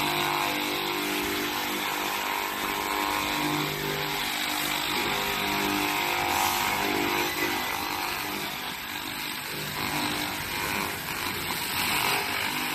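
Handheld laser cleaning head firing on a surface: a loud, steady hissing crackle with a wavering buzz underneath. It starts suddenly and cuts off abruptly at the end.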